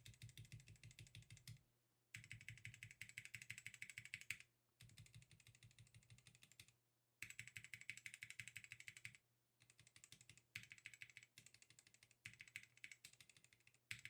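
Faint typing on a GamaKay K87 mechanical keyboard fitted with Gateron Yellow linear switches, one of them swapped for a Kailh Pro Burgundy. The typing comes in three quick runs of keystrokes with short pauses between them, then slows to scattered single key presses.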